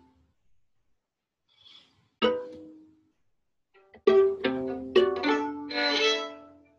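Two violins playing: after a near-silent pause of about two seconds, a single sharply attacked note rings out and fades, then from about four seconds in a quick run of sharp, accented notes that ring on over one another.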